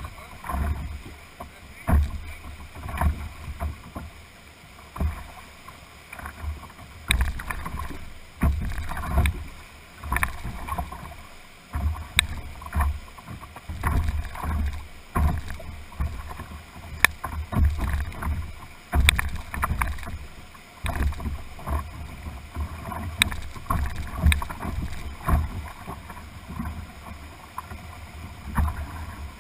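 Whitewater rapids rushing past a canoe, with irregular low thumps and sharp knocks every second or so as the water slaps and buffets the hull. The thumps come through the hull to a camera mounted on the deck.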